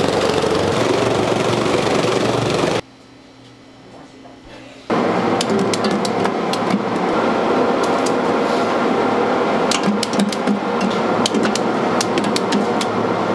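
Fish cake production machinery running with a steady mechanical noise, dropping away sharply for about two seconds near three seconds in, then running again with a rapid, irregular clatter of clicks and clacks.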